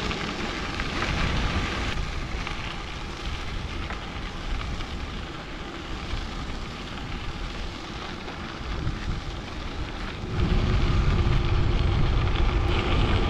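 Wind rushing over the microphone of a moving e-bike, with the tyres rolling on a crushed-stone trail under it. The wind rumble gets louder about ten seconds in.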